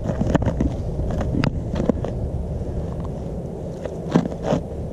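Low wind rumble on the microphone, broken by a few short crunches and scrapes of boots on snow-covered ice.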